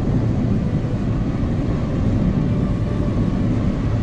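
Car cruising at highway speed: a steady mix of engine, tyre and wind noise with a constant low hum.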